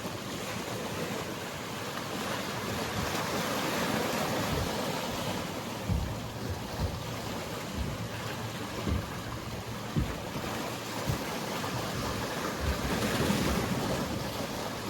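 Mediterranean sea waves washing steadily, with short low thumps of wind buffeting the microphone now and then.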